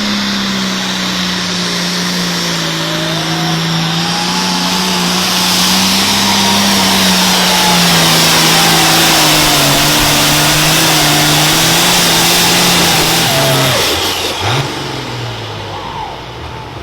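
Super farm class pulling tractor's diesel engine running hard under load on a pull. Its pitch sags slowly as it bogs, and it is loudest through the middle. Near the end the throttle is cut and the engine drops sharply down to a lower idle.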